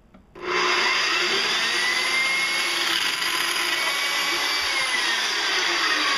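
Portable variable-speed band saw switching on about half a second in and cutting through copper tubing: a steady, loud running sound with faint whining tones that slowly rise and fall.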